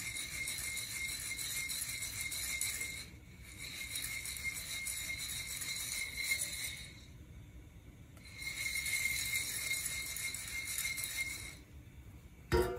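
Coffee beans rattling inside a Nuvo ceramic hand roaster as it is shaken over the burner, in three bouts with short pauses between them. A sharp knock comes right at the end.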